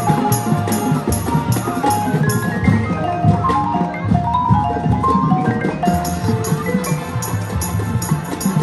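Marching band music, with the front ensemble's marimbas and other mallet keyboards playing a quick melody of short notes up close, over drums and the band.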